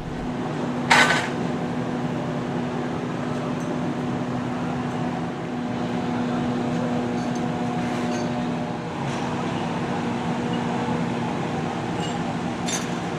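Construction-site machinery humming steadily with a low held tone. A sharp metallic clank rings about a second in, and a lighter clink comes near the end.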